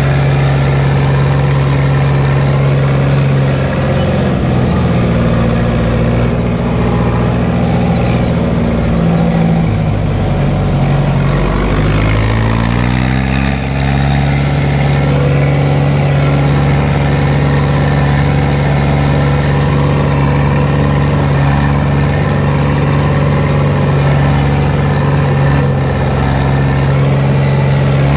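Fiat 70-66 tractor's four-cylinder diesel engine running. Its revs sag from about four seconds in, bottom out around ten to twelve seconds, climb back up a second or two later, then hold steady.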